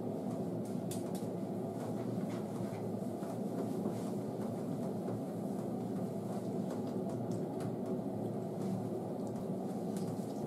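A steady low rumbling noise in a small tiled room, with faint scattered wet squishes from hands working conditioner through a Shih Tzu's soaked coat.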